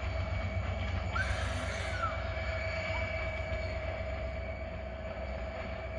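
Diesel locomotive of a departing passenger train running steadily, heard from aboard: a deep, evenly pulsing engine rumble with a steady whine over it. The locomotive is an EMD GT26 HCW-2A.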